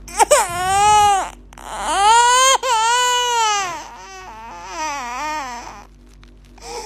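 A baby crying: three or four long, high wails about a second each with short breaths between, the last one fainter and wavering.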